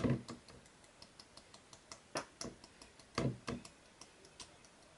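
Light, irregular clicks and taps of shotgun powder being poured and tapped into a small plastic water bottle, with a few louder taps about two and three seconds in.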